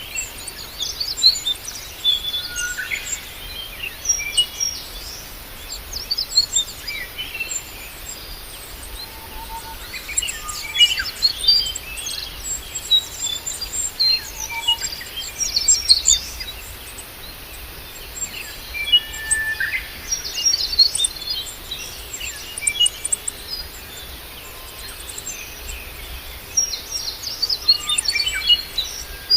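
Birds chirping and calling, in clusters of quick short notes that come every few seconds.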